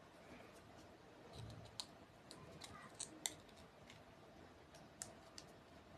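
Faint, scattered plastic clicks and taps as a cable tie is handled and threaded through a hole in a PVC piece.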